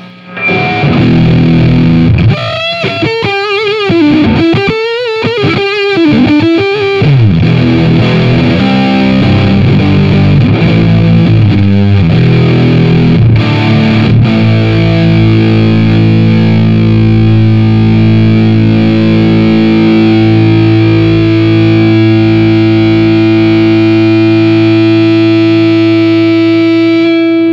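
Fender Stratocaster played through the Fuzzfather germanium fuzz pedal into a JCM 800-style tube amp on a dirty setting and a Marshall 4x12 cabinet: a fuzzy, distorted lead with wide string bends and vibrato in the first seven seconds, then shorter notes, then one long held note from about halfway that keeps sustaining until it is cut off near the end.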